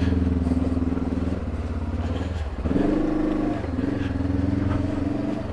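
Honda CB500X's 471 cc parallel-twin engine running at low revs under a light throttle while riding. The engine note drops off about two and a half seconds in, then rises again as the throttle opens, and eases once more shortly after.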